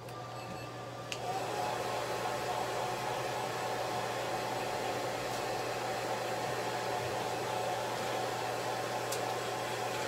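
Hand-held hair dryer blowing on a Shih Tzu's coat. It steps up in level with a click about a second in, then runs steadily with a whine.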